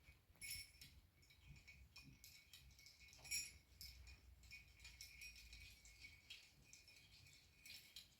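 Faint, scattered light clicks and rattles, the loudest about half a second in and just after three seconds in, over near silence.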